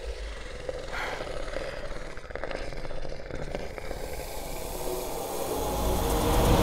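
Horror-film sound design: a low, noisy, roar-like rumble that swells steadily louder toward the end.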